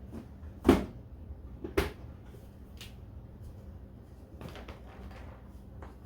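Pantry items and containers being handled and set down on shelves: two sharp knocks about a second apart, then a few softer clicks and rustles.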